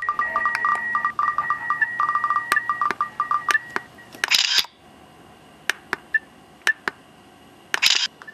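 Electronic glitch sounds: beeping tones broken up by rapid clicks for about four seconds, then scattered sharp clicks and two short bursts of hiss.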